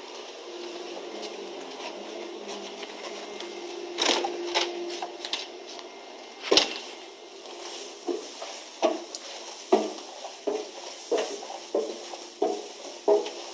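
Footsteps climbing a staircase: regular thumps about every 0.7 seconds from about eight seconds in. They follow a few knocks and one sharp, loud knock at about six and a half seconds.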